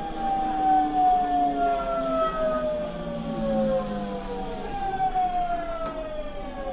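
GTO-VVVF inverter and traction motors of an Osaka Municipal 66 series subway car whining in several tones that fall steadily in pitch as the train slows. About five seconds in, the tones jump higher and fall again. The falling whine is the sign of regenerative braking as the train draws into a station.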